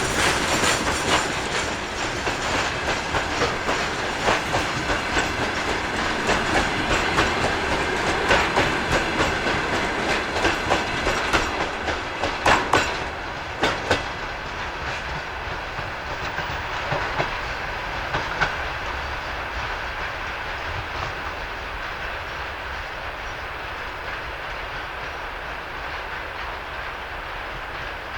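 Freight train wagons rolling past, their wheels clicking and knocking over rail joints. About 14 seconds in the clicking stops and the rumble of the train fades steadily as it moves away.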